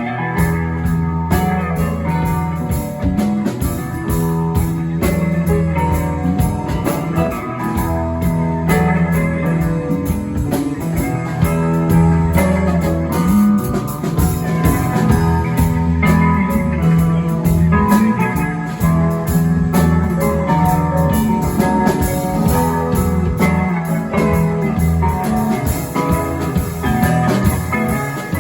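Music with electric guitar and a drum kit, in a blues-rock style with a steady beat.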